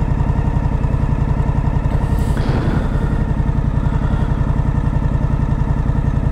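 Suzuki V-Strom 1050XT's 1037 cc V-twin, fitted with a GR Moto aftermarket exhaust, idling steadily with a loud, even pulse while the bike stands still.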